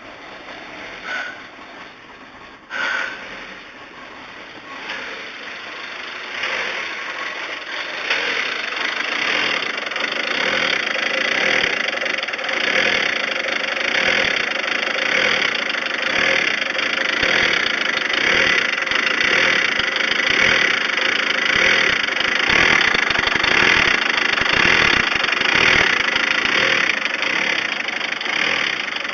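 Volkswagen Transporter T4's five-cylinder TDI diesel engine running, with a few short sharp noises in the first three seconds, then getting louder up to about eight seconds in and running on with a slightly fluctuating note. The engine idles unevenly, which the owner puts down to air drawn in through the crankcase breather hose into the intake.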